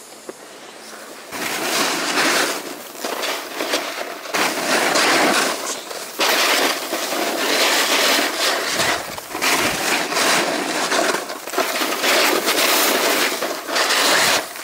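Snowboard sliding and scraping over firm groomed snow, a loud rushing hiss that swells and eases as the edge bites through the turns. It starts quieter and grows loud about a second and a half in.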